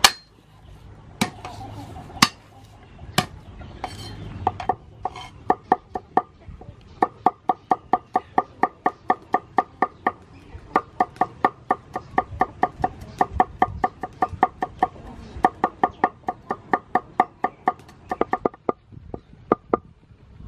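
Knife chopping garlic on a cutting board: a few separate strokes at first, then quick, even chopping at about four strokes a second, with short pauses.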